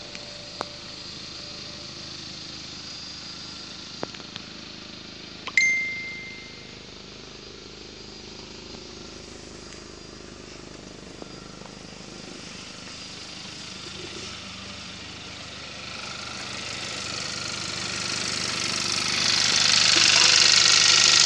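2017 Hyundai i30 1.6-litre four-cylinder engine running steadily, growing louder near the end as it is heard close up in the engine bay. About five seconds in there is a sharp click with a short beep.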